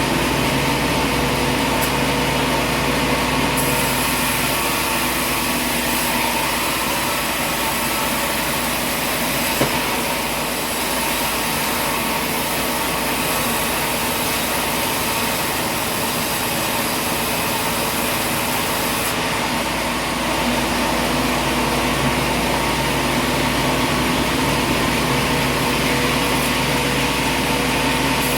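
A machine running steadily, a constant engine-like drone with several held tones, and a short click about ten seconds in.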